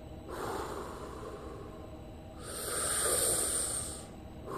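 A man's slow, deep breathing: a softer breath in, then a long, louder breath out through pursed lips starting about two and a half seconds in. It is a demonstration of diaphragmatic (belly) breathing.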